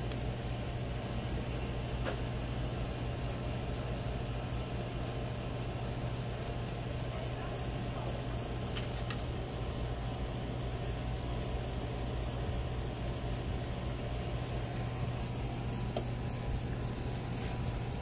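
Steady low mechanical hum under a constant hiss, with a fast, even pulsing high in the sound and a few faint clicks.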